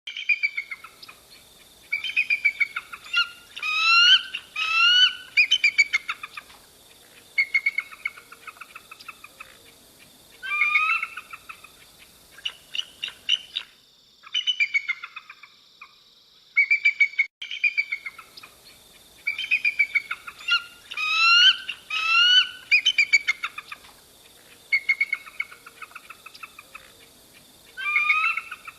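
Eagle calling: bursts of high, piping, chattering calls, some notes sweeping upward, repeated over and over with a short lull midway.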